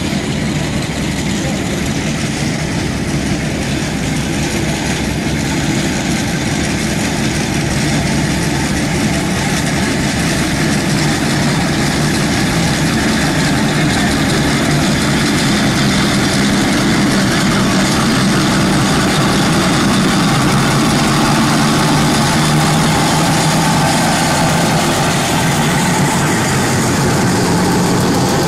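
Steam traction engines running past on a grass track, a steady dense mechanical sound that grows slowly louder as one comes close.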